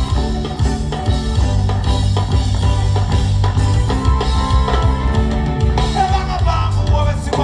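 Live band music with a steady drum beat and heavy bass under guitar or keyboard lines, played without vocals.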